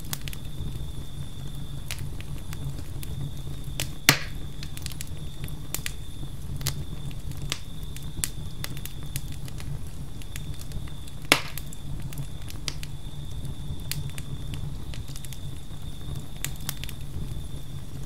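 Campfire burning with a steady low rumble and constant wood crackle, with two loud pops about seven seconds apart. A thin, high cricket trill runs behind it, breaking off now and then.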